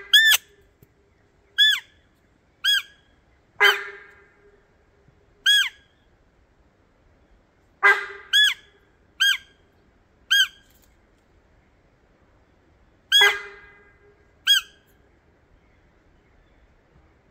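Hand-held deer call sounded in short, high, squeaky bleats, singly and in quick pairs every second or so. Four of them open with a louder, buzzier bleat. The calls are used to draw in a sambar deer.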